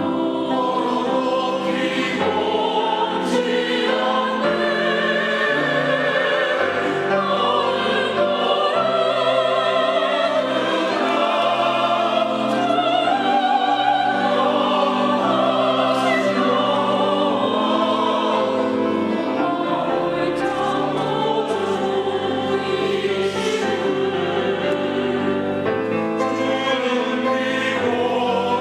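Church choir singing a sacred anthem, several voice parts together, with wavering vibrato on held notes.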